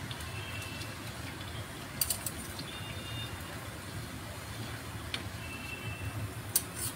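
Hot oil sizzling steadily as chicken cutlets deep-fry in a pan. Two short clusters of sharp clicks come about two seconds in and near the end, and a few short high beeps sound in between.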